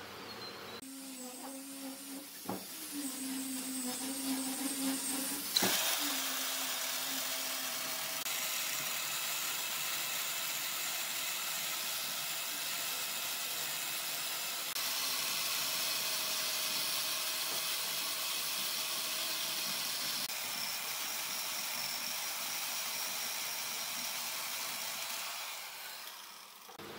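Chainsaw cutting into the end of a charred log on a wood lathe, a steady hissing cut from about six seconds in that stops about a second before the end. A low hum with a couple of clicks comes before it.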